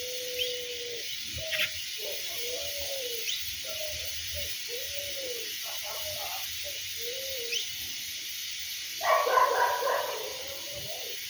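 A dove cooing a series of low, arched notes, about one every second and a bit, with faint high bird chirps behind. Near the end there is a louder, rougher call that sounds like a dog barking.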